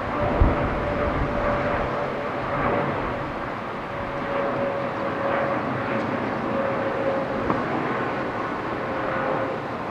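Jet airliner engines running: a steady rush carrying a faint whine that slowly drops in pitch.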